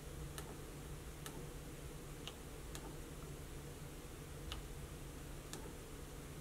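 About six faint, irregularly spaced clicks of fingertip taps on a touchscreen, over a steady low hum.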